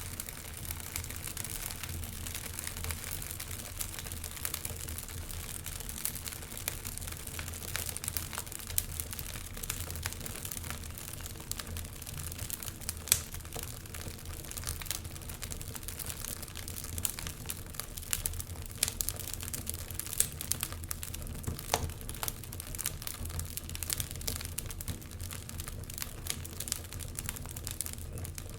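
Wood fire in a fireplace crackling, with irregular sharp pops and snaps over a steady low rumble and hiss; one pop about halfway through is louder than the rest.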